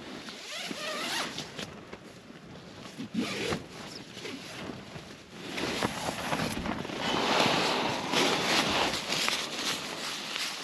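Nylon tent and sleeping-bag fabric rustling and scraping as someone shifts about inside a small tent, loudest in the second half.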